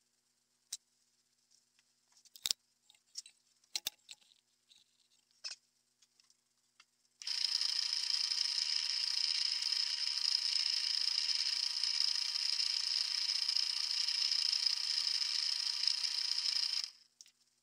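Small metal push-drill part held against a spinning abrasive wheel in a drill press: a steady grinding hiss that starts about seven seconds in and stops abruptly near the end, after a few light handling clicks.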